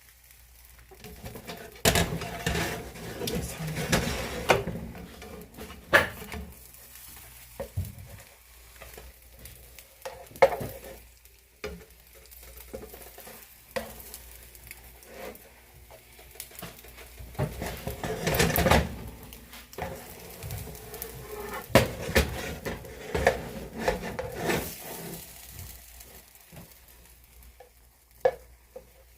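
A utensil scraping and tapping against a frying pan in irregular strokes, over the light sizzle of an omelet cooking.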